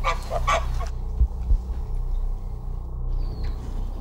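Two short goose honks about half a second apart at the start, over a steady low drone with a soft double thump like a heartbeat about a second in.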